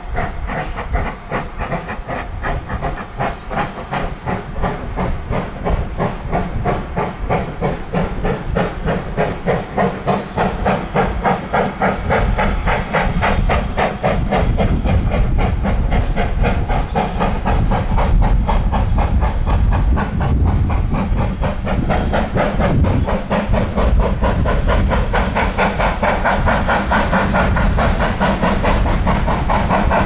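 Double-headed steam locomotives, GWR Saint-class 4-6-0 2999 Lady of Legend and LMS Ivatt Class 2 2-6-0 46447, chuffing as they approach: a fast, regular run of exhaust beats with steam hiss that grows steadily louder.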